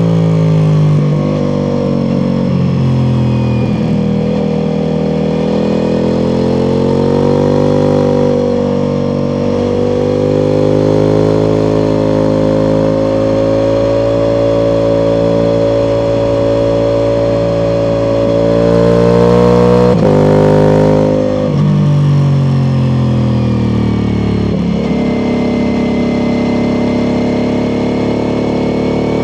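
Ducati Multistrada V4 Pikes Peak's V4 engine through an Akrapovic exhaust, running under steady throttle while riding. Its pitch climbs slowly, then rises sharply about twenty seconds in and drops briefly, like a shift or roll-off, before settling back to steady running.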